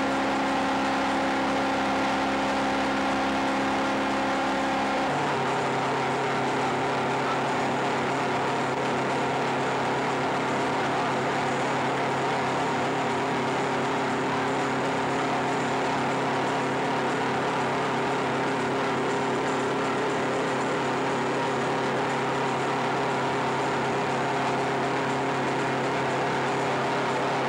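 Electronic drone music played live on synthesizers and noise electronics: a thick, unbroken wall of hiss with several held tones sounding together. About five seconds in, the held tones switch to a new chord, with a lower tone coming in.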